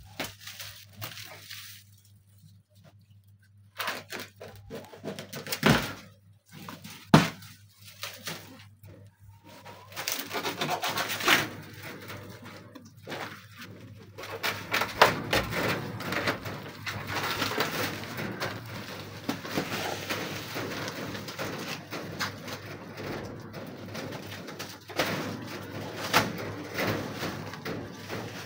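Plastic stretch film being peeled and torn off a metal cabinet, crinkling and rustling almost without a break from about ten seconds in. Earlier there are quieter gaps and two sharp knocks, about a second apart.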